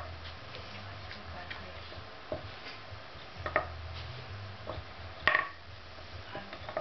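Wooden blocks knocking against a wooden dog puzzle board as they are set into and lifted out of its holes: a few separate sharp knocks, the loudest about five seconds in.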